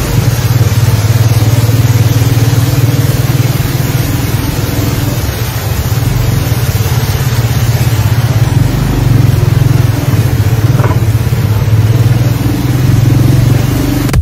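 A motor vehicle's engine running steadily, with a constant rushing noise over it, recorded from the vehicle as it moves along a flooded street.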